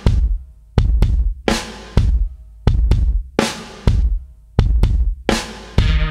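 Background music: a solo drum-kit intro with kick and snare hits on a steady beat, roughly every three-quarters of a second. Near the end the rest of the band comes in with sustained bass and guitar-like notes.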